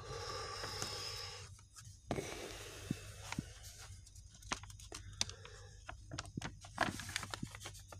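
Paper rustling and crackling as the pages of a worn, water-stained paperback book are handled and turned: a steady rubbing for about the first second and a half, then scattered crackles and ticks.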